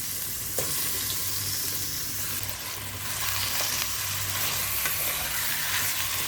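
Chicken pieces sizzling as they fry in a pan, stirred with a utensil that clicks against the pan now and then; the sizzling gets louder about halfway through.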